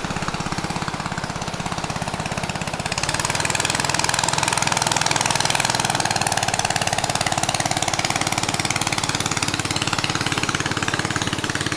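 Engine of a Thai longtail boat running at speed as the boat motors past. It grows louder about three seconds in, and its pitch sinks slightly as the boat goes by.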